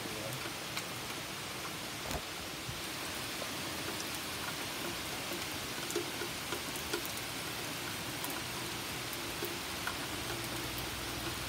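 Heavy rain pouring steadily onto a wooden deck and the surrounding trees, with a few scattered drip taps.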